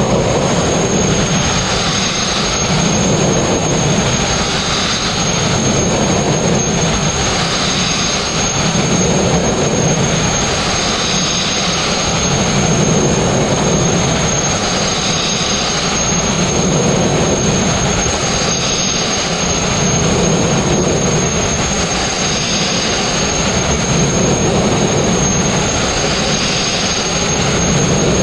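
Sandblasting nozzle running continuously against a steel narrowboat hull, stripping old paint and rust: a loud, steady hiss of compressed air and abrasive grit, with a thin high whistle. It swells and eases about every three to four seconds.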